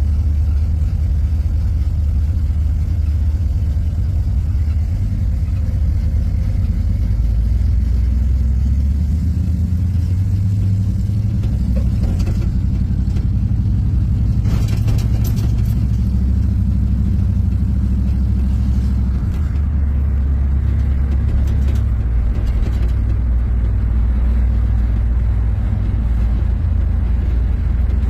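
Vehicle engine and exhaust running steadily at low speed: a loud, low drone that holds without revving. A short burst of hissing noise rises over it about halfway through.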